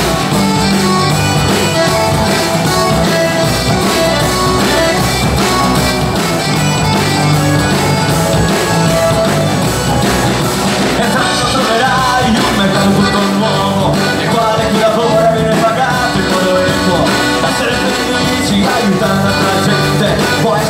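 Live band playing: accordion, acoustic guitars and a drum kit with a steady beat.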